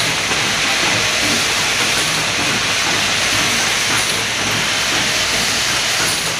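Steady hiss of a running pneumatic infusion-cap assembly machine, even in level with no clear beat.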